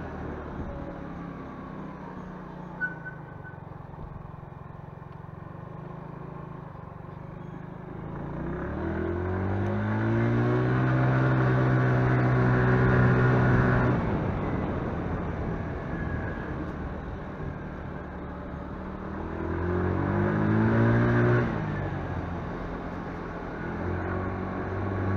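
Motorcycle engine heard from the rider's seat, pulling up through the revs about eight seconds in, holding for several seconds, then easing off. A second, shorter rise about twenty seconds in cuts off suddenly, with one sharp tick about three seconds in.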